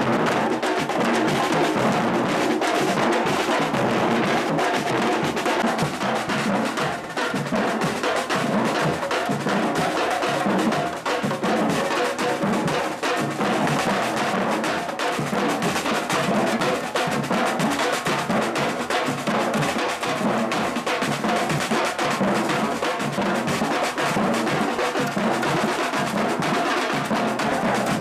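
Batuque percussion group drumming: many drums played together in a dense, continuous rhythm.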